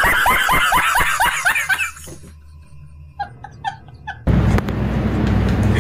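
A man laughing hard in rapid repeated bursts, about six a second, each falling in pitch. About two seconds in it fades into quieter, breathy giggles. About four seconds in a steady low hum of room noise takes over.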